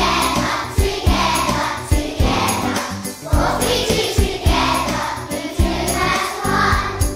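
A group of young primary-school children singing a song in unison, over instrumental accompaniment with a steady beat.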